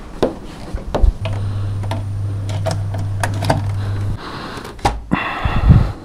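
Handling noise from a flat-screen computer monitor being lifted and carried: a string of knocks and plastic clicks, with a low steady hum for about three seconds in the middle and a louder rustling scrape near the end.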